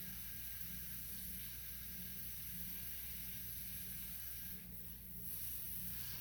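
Faint steady hiss with a low hum underneath, dipping briefly a little after four and a half seconds in: room tone with no distinct event.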